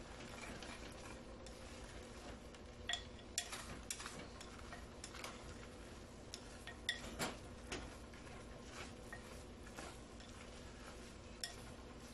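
Chopsticks clicking and scraping against the inside of a clay pot as cooked claypot rice is mixed through. The taps are light and irregular, and a few give a short ringing clink.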